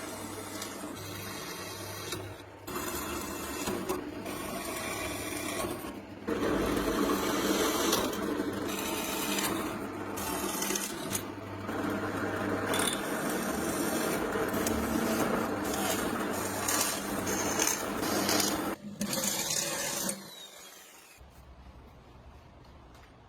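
A small motor-driven tool at work, in several short stretches that change abruptly, stopping about 20 seconds in.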